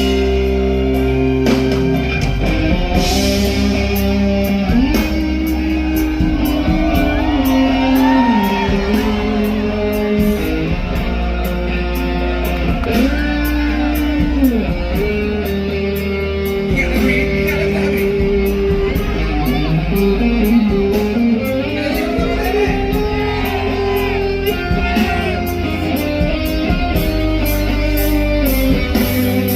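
Live band music with a guitar carrying the melody in bending, gliding notes over steady bass and an even drum beat.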